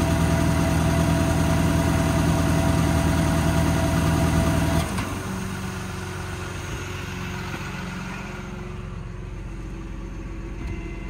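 Truck-mounted IMT hydraulic air compressor running loudly over the idling Cummins diesel, then shutting off about five seconds in, leaving the diesel idling more quietly.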